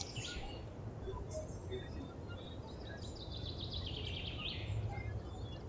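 Quiet background noise, with a faint high chirping for about a second and a half a little past the middle.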